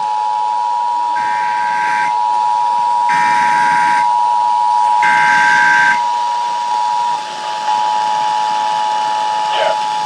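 Emergency Alert System attention signal: two steady tones, 853 and 960 Hz, sounded together for about seven seconds, with three short higher-pitched bursts over it. A slightly shifted pair of tones carries on after it, and a voice starts the test announcement near the end.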